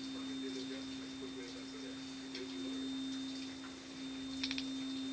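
A steady hum-like tone held at one pitch without a break, with a few faint ticks near the end.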